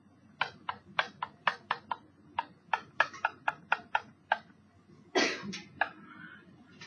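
A stylus tapping and clicking against a writing screen during handwriting: about twenty quick, sharp ticks at an irregular pace, with one louder, longer noise about five seconds in.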